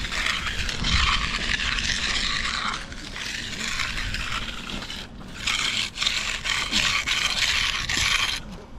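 Hand mag float scraping and sliding across the surface of freshly poured concrete as the slab is floated. The scraping eases off for a couple of seconds partway through, then picks up again and stops abruptly near the end.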